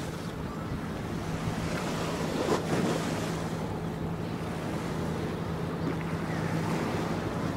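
Wind buffeting the microphone and waves washing, with a steady low drone from a passing small coastal cargo ship's diesel engine. A stronger gust comes about two and a half seconds in.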